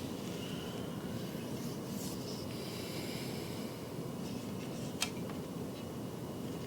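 Soft rubbing and rustling handling noise as a recurve bow is unwrapped and handled, with one sharp click about five seconds in.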